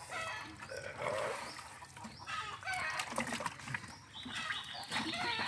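Chickens clucking, with a rooster crowing, in a series of short pitched calls.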